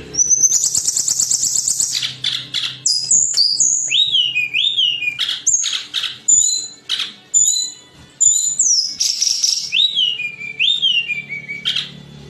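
Tledekan gunung songbird singing loudly. It opens with a fast, high trill, then runs into a varied string of clear whistled notes and repeated down-slurred phrases.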